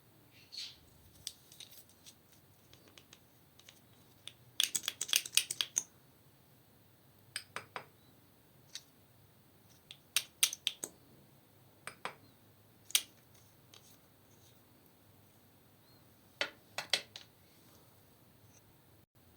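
Slime being squeezed and worked by hand, giving sharp clicks and pops in scattered short bursts, with a dense run of crackling about five seconds in.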